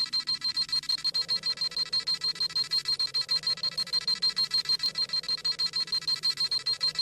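Dragon Ball Z scouter sound effect: a fast, even train of high-pitched electronic beeps, several a second, as the scouter scans a power level.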